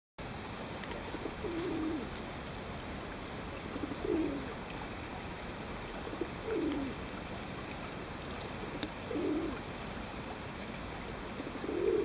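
A dove cooing: five low, slightly falling coos, one about every two and a half seconds.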